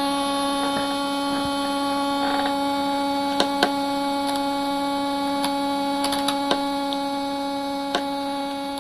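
A steady electrical hum with a buzzing edge from a party speaker, with a few sharp clicks over it.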